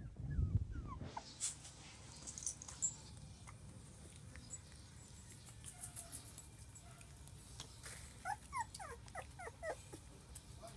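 Border collie puppies whimpering and yipping at play, with a quick run of about ten short, high whines near the end. A low rumble sounds in the first second.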